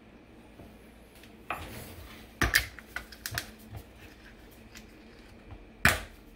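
Glass spice jar, pepper grinder and bottles being picked up and set down on a stone countertop: a brief rustle, then a run of sharp clicks and knocks, and one more loud knock near the end.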